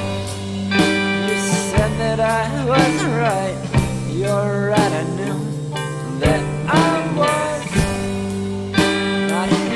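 Indie rock recording: guitars playing bending, gliding notes over sustained chords, with a slow beat about once a second.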